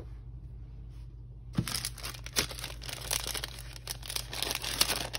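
Clear plastic pouch crinkling and crackling as it is picked up and handled, starting about a second and a half in, with sharp crackles among the rustle.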